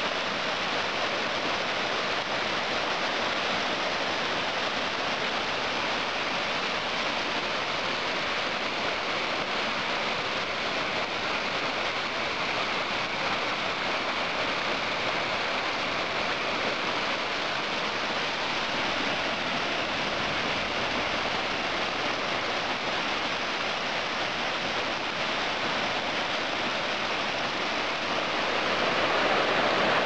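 Mountain stream cascading over rock steps in a small waterfall: a steady rushing hiss of water that grows a little louder near the end.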